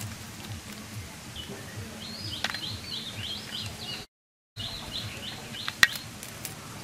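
Climbing perch being scaled and trimmed against a bonti blade: scratchy scraping with scattered sharp clicks, the loudest near the end. A bird chirps in quick runs of short high notes in the background. The sound cuts out completely for about half a second around four seconds in.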